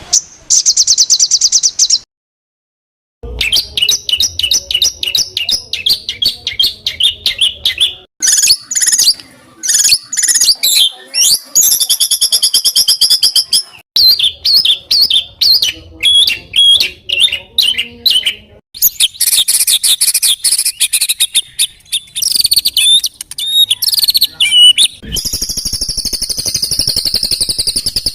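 Songbird song compiled for training caged birds: fast, rough chattering and high trills of rapidly repeated notes, coming in separate spliced phrases, with a second of dead silence about two seconds in.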